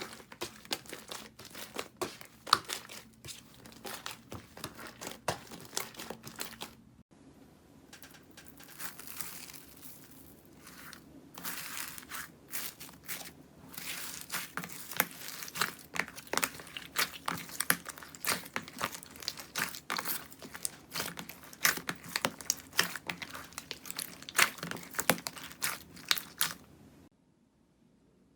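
Slime being squeezed and pressed by hand, making dense crackling and popping clicks. The sound breaks off briefly about seven seconds in, picks up again, and stops shortly before the end.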